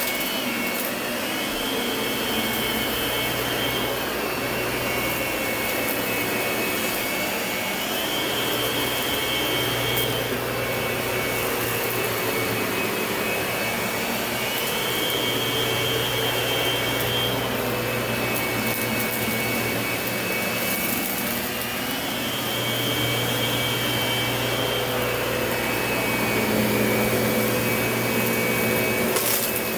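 Lindhaus vacuum cleaner running steadily, its motor giving a constant whine. About every seven seconds a higher whine comes in for two to three seconds, then drops back, four times over.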